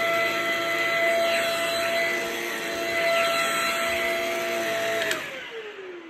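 Stick vacuum running steadily on carpet with a high motor whine. About five seconds in it is switched off with a click, and the whine falls in pitch as the motor winds down.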